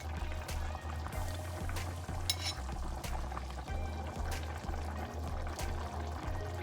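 Background music with a stepping bass line, over a liquid sound of cooking in a pot.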